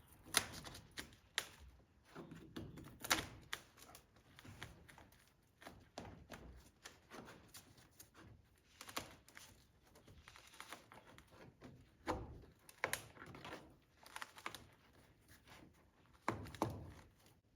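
Irregular clicks, taps and a few sharper knocks of hand-tool work on wood as a sponson is pried away from a wood-and-canvas boat hull, where it is still held by nails.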